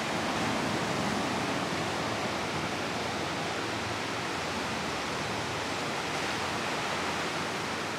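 Steady rushing of ocean surf on a beach, an even hiss with no breaks.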